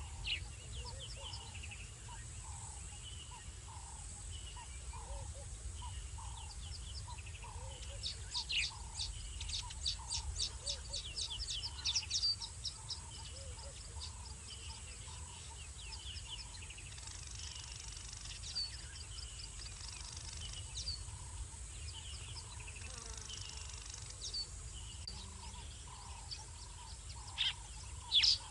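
Night-time chorus of small calling animals: a short mid-pitched chirp repeating a little faster than once a second, with bursts of rapid high-pitched chirping about eight to twelve seconds in and again near the end.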